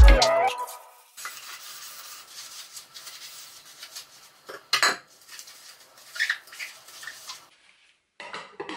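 Washing up by hand: a sponge scrubbing metal pots and pans, with a sharp clank of cookware about five seconds in and more clattering a second or two later.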